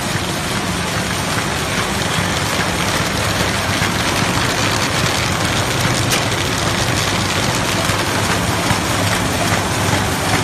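RZFD-330 square bottom paper bag machine running at about 150 bags a minute: a steady, dense mechanical clatter and hum from its rollers and forming gear as kraft paper feeds through.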